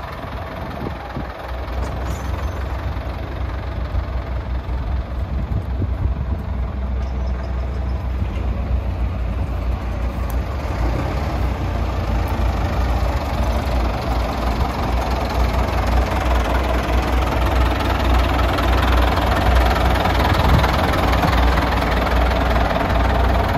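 Caterpillar 950 wheel loader's diesel engine idling steadily, growing gradually louder as the rear engine compartment comes closer.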